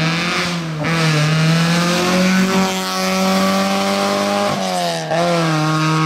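Historic rally car engine held at high revs under hard acceleration on a special stage, its note dipping and climbing back about a second in and twice again near five seconds as the driver lifts and changes gear.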